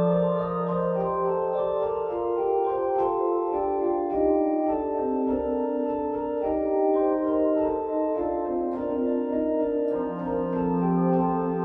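Johannus STUDIO-II digital organ playing a chorale prelude in several voices, with sustained notes moving in steps. A held low note sounds under the chords at the start, drops out about two seconds in, and returns near the end.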